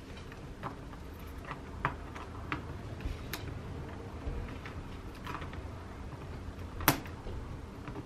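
Scattered light clicks and taps of a plastic pry tool and fingertips pressing wires into the plastic routing grooves of an open laptop chassis, with one sharper click about seven seconds in.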